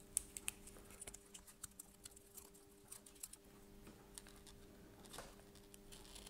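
Swivel-blade deburring tool shaving the brim off the edge of a 3D-printed plastic part: faint, irregular small clicks and scrapes.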